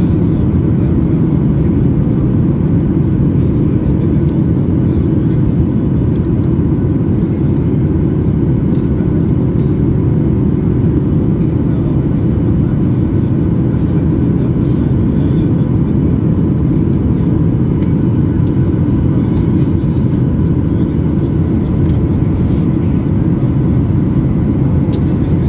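Boeing 737 MAX 8 in flight, its CFM LEAP-1B engines and the airflow heard from inside the cabin as a steady, low, unbroken roar with a faint steady tone above it.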